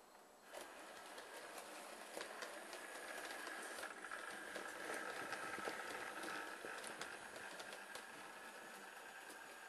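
Model train running along the layout track: a steady electric-motor whine with wheels clicking over the rail joints. It starts about half a second in, grows louder toward the middle and eases off near the end as the train passes.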